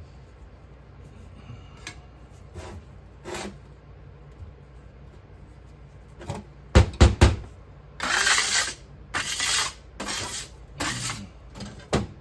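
Handling of a sand-casting flask: a few sharp knocks about seven seconds in, then a run of scraping strokes, each about half a second long, on packed Petrobond casting sand.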